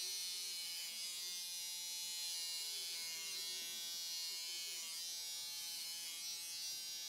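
Corded electric hair clipper buzzing steadily as it is run over a head, cutting short hair close to the scalp.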